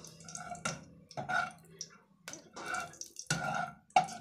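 Metal spatula stirring popcorn kernels in hot ghee in a steel pot: repeated scraping strokes against the pot about every half second, with a light ring from the metal.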